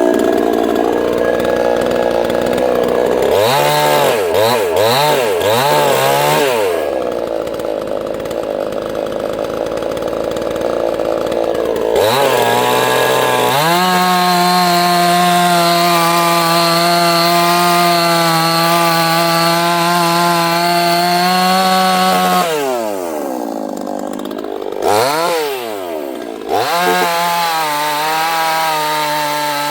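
Neotec NCS6800 68cc two-stroke chainsaw running. It is revved up and down several times and held at a steady high pitch for about ten seconds, then drops and is revved again. In stretches near the start and around a third of the way in, its note turns rough and noisy, like the chain under load in wood.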